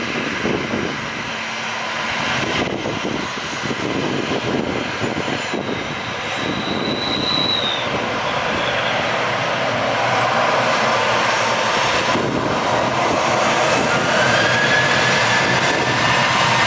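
Boeing 737-800's CFM56 jet engines running as the airliner lines up on the runway. The sound grows louder after about ten seconds, and a whine rises in pitch near the end as thrust builds for the takeoff roll.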